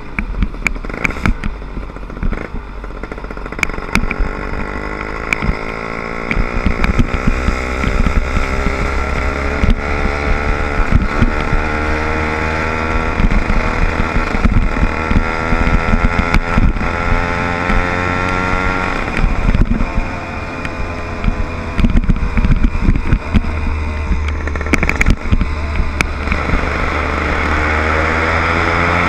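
Small 60/80cc motorized-bike engine running under way, its pitch climbing as the bike speeds up, dropping off once about two-thirds through, then climbing again. Frequent short knocks and rattles throughout.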